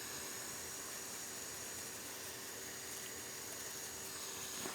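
Steady faint hiss with a faint steady hum underneath, and no distinct events.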